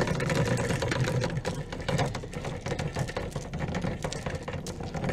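Boat anchor being let go, its rode running out with a rapid, continuous rattle over a steady low hum.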